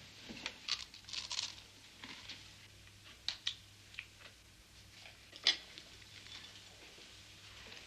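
Scattered light clinks and clicks of cups, plates and utensils as people eat and drink at a table, with one sharper clink about five and a half seconds in.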